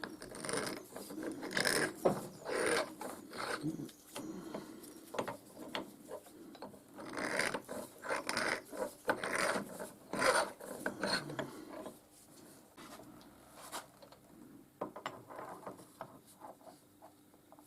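Irregular rasping and scraping strokes, like hand work on a metal part. They come in two busy spells and thin out to scattered faint scrapes over the last few seconds.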